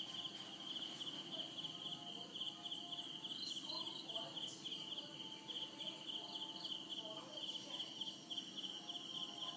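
Insect chirping steadily in a fast, even pulse.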